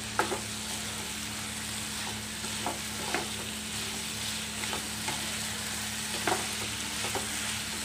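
Sauce-coated chicken pieces sizzling as they stir-fry in a nonstick kadai over a high gas flame. A spatula stirs them, giving light irregular knocks and scrapes against the pan.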